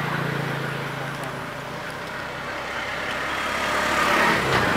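An engine running steadily with a low hum, growing louder near the end.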